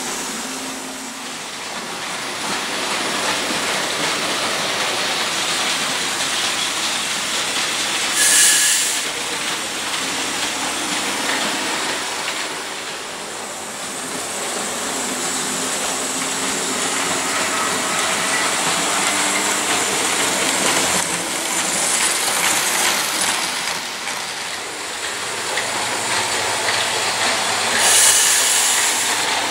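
Model railway running: the steady whirring and rattling of Märklin model trains on metal track, mixed with the small electric motors of the Faller conveyor belt and the Märklin crane. Two short hissing rushes come through, one about eight seconds in and one near the end.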